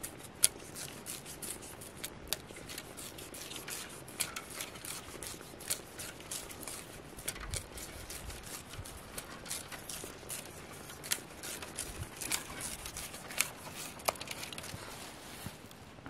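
Green grass stalks being split lengthwise with a thin metal blade: scraping with irregular sharp clicks as the fibres give way.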